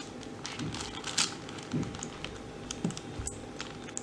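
Small plastic clicks and clatter of a 6x6 Rubik's cube as its layers are turned by hand, an irregular run of light clicks.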